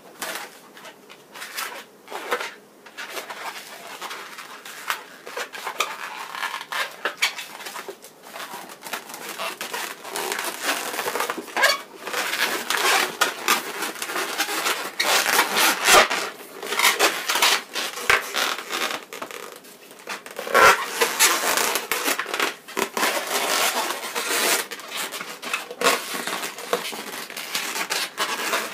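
Latex modelling balloons squeaking, crackling and rubbing as they are twisted, bent and tied by hand, in an irregular run of short squeaks that grows busier and louder partway through.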